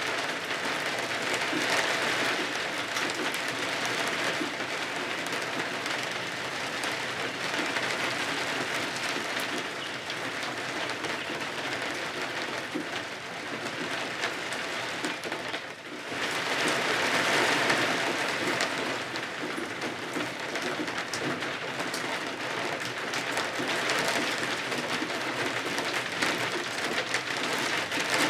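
Steady heavy rain falling on the cottage windows and roof, a dense hiss that swells and eases every few seconds, with a brief lull about sixteen seconds in.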